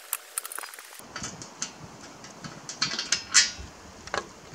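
Clicks, knocks and scrapes of a heavy metal mainframe base plate being handled and turned over on a wooden deck, with the loudest knock about three and a half seconds in.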